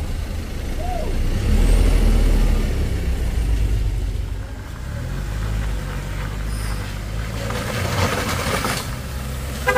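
A Mitsubishi Fuso Canter box truck's diesel engine running as the truck drives past close by. The low rumble is loudest about one and a half to three and a half seconds in, then gives way to quieter engine and road noise.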